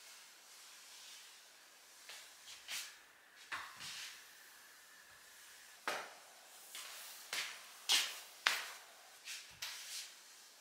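Short, brisk scraping and tapping strokes of a long wooden-handled floor-cleaning tool worked over a wooden floor, more than a dozen in all, coming faster and louder in the second half.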